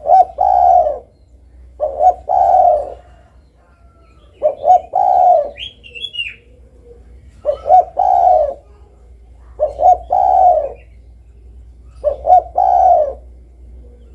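Spotted dove (derkuku) cooing. Six phrases come about every two and a half seconds, each two short notes followed by a longer falling coo. A brief higher chirp sounds near the middle.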